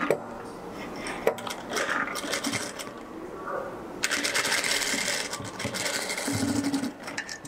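Industrial sewing machine stitching a seam through thin fabric: a few sharp clicks first, then the machine runs steadily from about halfway through for about three seconds.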